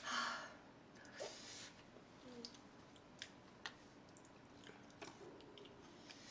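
Faint close-up eating sounds: soft chewing with scattered small mouth clicks and ticks, after a short breathy noise right at the start.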